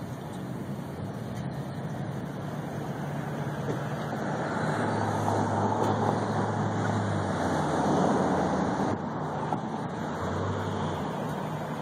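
Road traffic passing on a street. One vehicle's low engine hum grows louder about four seconds in and fades again a few seconds later.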